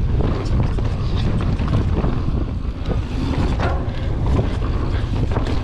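Mountain bike riding fast down dry dirt singletrack: wind buffeting the camera microphone over the rumble of the tyres, with frequent short knocks and rattles from the bike over bumps.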